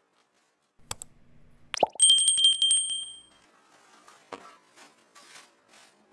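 Subscribe-button notification sound effect: a click, a short plop, then a bright bell ding ringing for about a second and a half with a rapid rattle of clicks under it.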